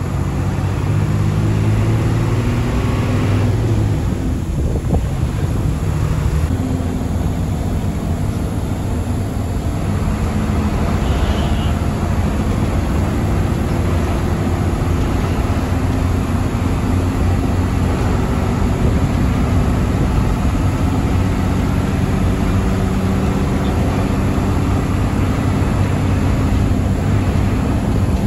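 Hino AK1J bus's diesel engine running at road speed, heard inside the cabin as a steady low drone with road and tyre noise over it.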